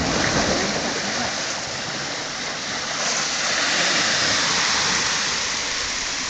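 Surf washing on the shore: a steady rush of water that swells about three seconds in.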